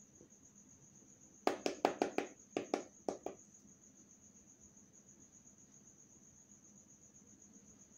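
A cricket chirring steadily and faintly in the background. From about a second and a half in, a quick run of about a dozen light clicks and taps comes from the makeup brush and palette being handled.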